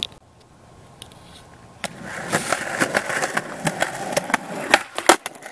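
Skateboard wheels rolling over sidewalk concrete, growing louder from about two seconds in, with rattling clacks and two sharp board impacts near the end.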